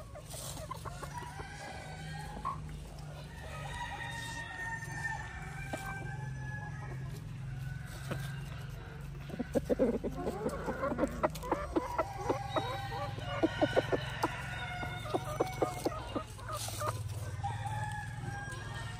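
Ayam Cemani chickens: a rooster crows in the first half, then comes a run of rapid, loud, sharp clucking through the middle, with a steady low hum underneath.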